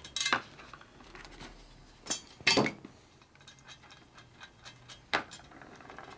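Light metallic ticks and clinks of stainless steel wire spokes and nipples being worked loose and pulled out of a motorcycle wheel, with a few sharper clinks, the loudest about two and a half seconds in.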